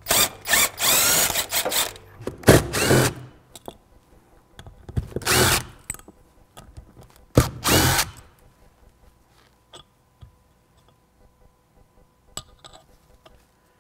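Impact wrench hammering in four bursts as it drives the centre bolt of a flywheel puller, pressing the RZR XP 1000's flywheel off the crankshaft. After about eight seconds, only light metal clinks of flywheel parts being handled.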